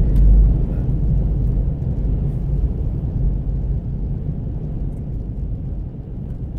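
Steady low rumble of a Toyota 4Runner driving on a gravel road, tyre and road noise without a distinct engine note, easing off a little near the end.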